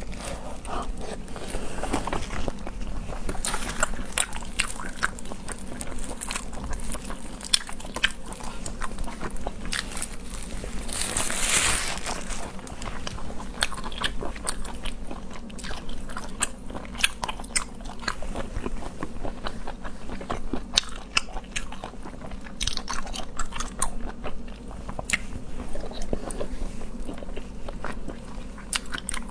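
Close-miked eating of seafood: steady chewing and biting with many sharp wet clicks and crunches, and a longer hissing smacking sound about eleven seconds in.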